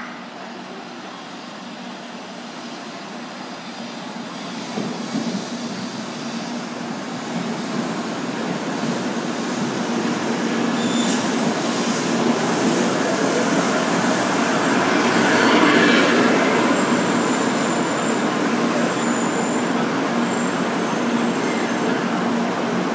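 N700-series Shinkansen 'Sakura' pulling into a station alongside the platform. A rush of rolling and air noise grows steadily louder as the train comes in. It is loudest about two-thirds of the way through, as the cars run past, then holds steadier as the train slows.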